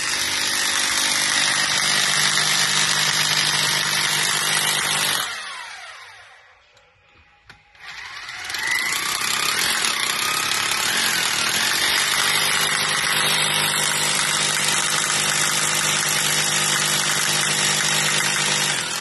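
Corded rotary hammer drill boring into a concrete floor, running steadily at full speed. About five seconds in the trigger is released and the motor winds down; it spins back up about three seconds later and drills on.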